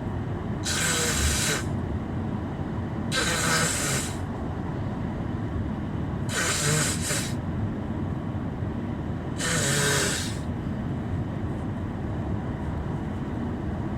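A man with a head cold breathing in noisily through a stuffed-up nose four times, about every three seconds, each breath a hissy sniff about a second long. Under it runs the steady low rumble of a car's cabin on the move.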